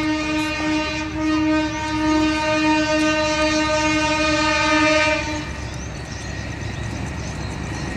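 Locomotive horn sounding one long, steady blast that cuts off about five seconds in, over the low rumble of the approaching train, which carries on after the horn stops.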